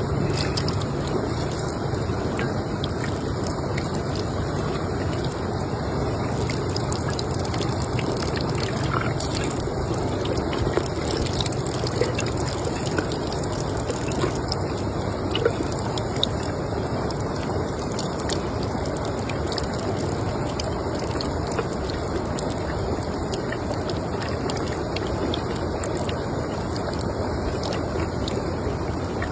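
Steady running water trickling and splashing, with a few faint clicks.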